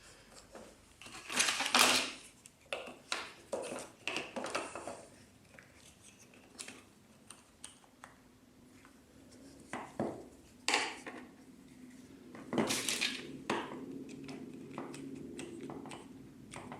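Handling noises from a glue-up: wooden box parts and tools being picked up, set down and fitted together, with irregular clicks and knocks and two louder rustling scrapes, one about two seconds in and one near thirteen seconds.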